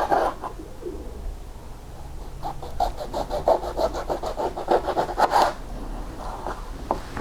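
A kitchen knife sawing back and forth through a lemon as it is cut into thick slices: a run of quick strokes from about two and a half seconds in until about five and a half seconds in, with a few light knocks after.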